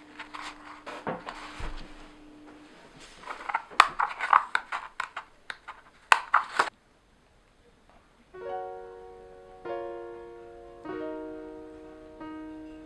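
Irregular light clicks and rustles for the first half, then after a brief pause soft background music starts, a string of piano and plucked-string chords struck about once a second.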